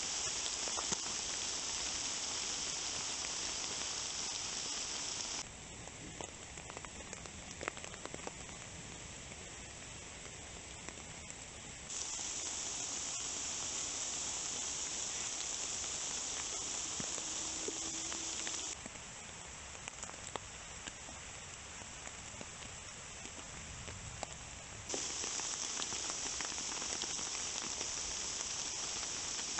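Steady rain falling on woodland and on a tarp and tent: an even hiss with scattered drips. It steps between louder and quieter stretches about every six seconds.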